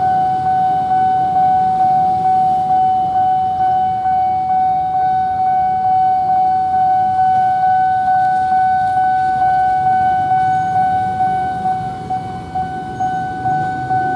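Railway level-crossing warning alarm sounding: a steady electronic tone that pulses about twice a second. A low engine rumble runs underneath.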